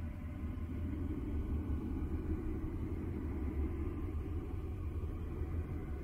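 Steady, deep noise from a sleep-aid 'space sound' noise track, with most of its weight in the bass and little treble, unchanging apart from slight swells.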